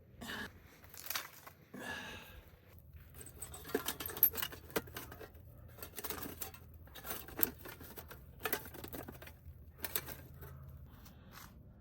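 Irregular clicks, taps and rustles of things being handled, with no steady rhythm.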